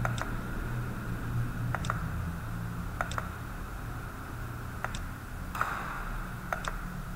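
Computer mouse clicking: five short, sharp clicks spaced one to two seconds apart, over a low steady hum.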